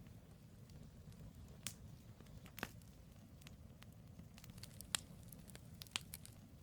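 Firewood logs burning in a campfire: a low steady rumble of flames with scattered sharp crackles and pops, the louder snaps about two and a half, five and six seconds in.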